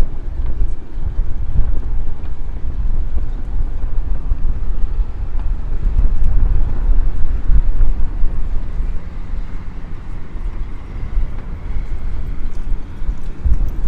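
Outdoor street noise dominated by a low, uneven rumble, typical of wind buffeting the camera's microphone, with a faint hum around ten seconds in.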